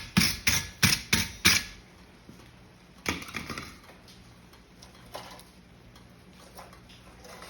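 Hammer blows on a heated steel horseshoe blank on the anvil, about three a second, knocking the slag off; they stop under two seconds in, followed by a few lighter, scattered knocks and clinks.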